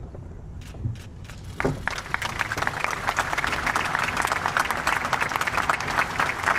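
Audience applauding. A few scattered claps at first, then full applause from a little under two seconds in.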